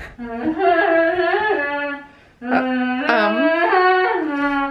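A single unaccompanied voice singing in long, held notes that slide up and down, breaking off briefly about two seconds in.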